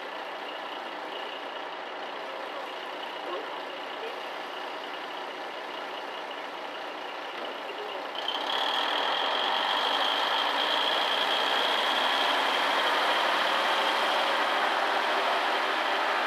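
Diesel railcar idling at the platform, then its engine throttling up about eight seconds in as the train pulls away. A steady high whine rides over the engine and grows louder with it.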